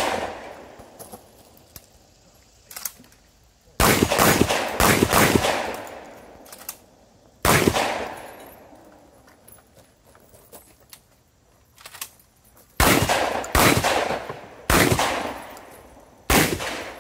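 Semi-automatic shotgun fired in quick strings of several shots, each with a short fading echo. A rapid string comes a few seconds in, then a single shot, then a pause of several seconds before another fast string near the end.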